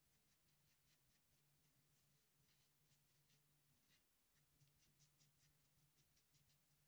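Faint, rapid scraping of a Rockwell 6C safety razor's blade cutting through a week's stubble on the chin and neck, several short strokes a second.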